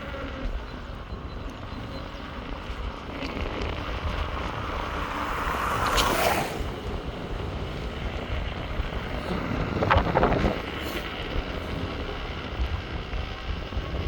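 Steady wind rush on the microphone and road noise while riding an Inmotion V12 electric unicycle, with two louder whooshes that swell and fade, about six and ten seconds in.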